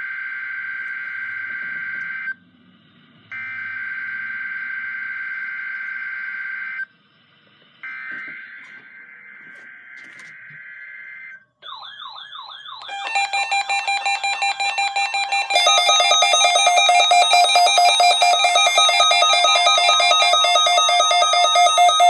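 NOAA Weather Radio SAME digital header: three shrill, buzzy bursts of data tones with short pauses between them, the coded start of the weekly test. About 11 seconds in they give way to a loud electronic alarm, first a warbling tone, then a fast, repeating pattern of beeping tones.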